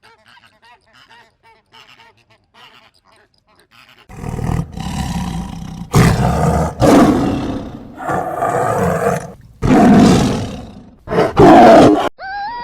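A big cat roaring: a run of about five loud, rough roars with short breaks, starting about four seconds in after faint quacking-like calls.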